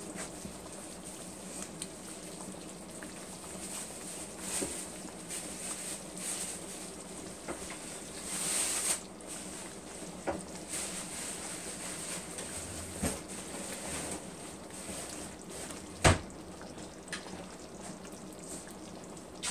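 Thick ground-beef tomato sauce simmering in a large pan, with irregular pops and plops as bubbles burst through it over a steady low hum. The loudest pop comes about 16 seconds in.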